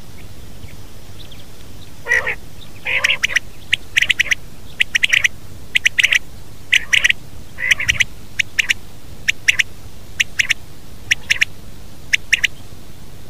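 Male quail calling: a repeated phrase of two or three sharp, quick notes, about once a second, starting about two seconds in. The first couple of phrases open with lower, harsher notes. A steady background hiss runs underneath.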